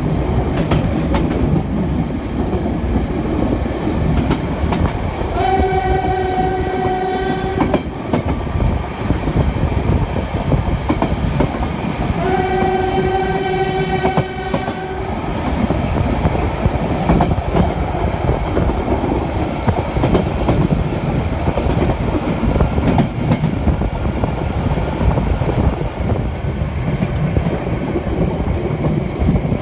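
Narrow-gauge train sounding its horn twice, two steady blasts of about two and a half seconds each, a few seconds apart, as a warning for a level crossing ahead. Under them runs the steady rumble and clatter of the wheels on the track.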